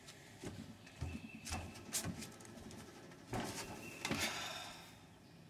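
Someone moving about and settling in on a wooden porch deck: irregular knocks and thumps with shuffling between them, dying down over the last second or so.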